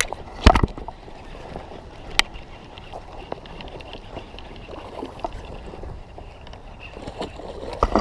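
Water sloshing and splashing as a hooked bass is fought at the surface, with a few sharp knocks in the first second, the loudest about half a second in.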